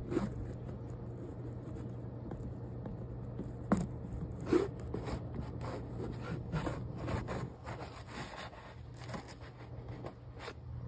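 Handling noise: a run of irregular short scrapes and clicks, as of objects rubbed and knocked close to the microphone, over a steady low hum.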